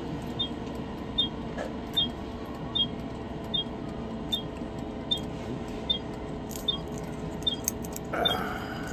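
Regular soft ticks, about one every 0.8 seconds, each with a faint high double note, over a steady low hum. A short rustling sound comes near the end.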